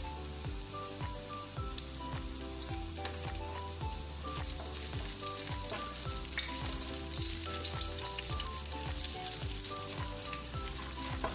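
Chopped red onion sizzling in hot cooking oil in a wok, stirred with a wooden spatula: the onions frying at the start of a sauté. Soft background music with a steady beat plays underneath.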